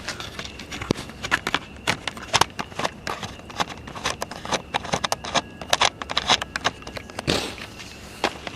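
Footsteps and handling noise: an irregular run of sharp clicks and knocks, several a second, with a louder knock about seven seconds in.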